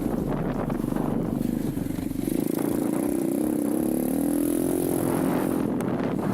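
Irbis TTR 125 pit bike's single-cylinder four-stroke engine running while ridden; its pitch rises from about two and a half seconds in as it picks up revs, then holds steady.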